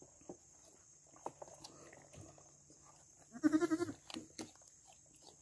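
A goat bleats once, a short wavering call of about half a second, about three and a half seconds in, over faint scattered clicks.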